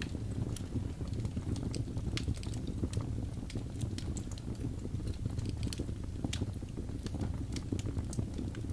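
Wood fire crackling in a fireplace: a steady low rumble of burning with frequent, irregular sharp pops and snaps.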